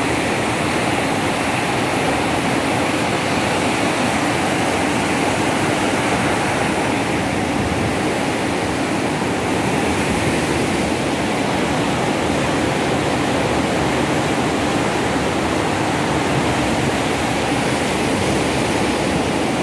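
Water rushing fast through a sluice gate whose gate leaf has failed to close and let the rising tide pour through. The rush is loud and steady.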